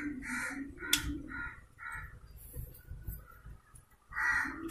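A crow cawing: a run of about six harsh caws over the first two seconds, then one more near the end. A single sharp click about a second in.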